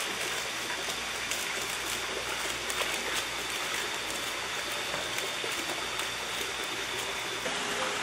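Water splashing and dripping as a seine net is hauled through a shrimp tank: a steady wet hiss full of small crackling drips and splashes.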